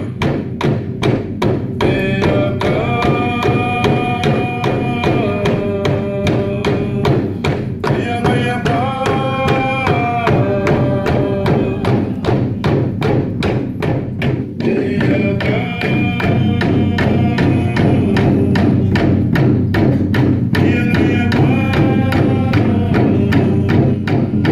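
Torres Strait Islander dance music: a group singing long held notes in short phrases over a steady, fast beat on drums.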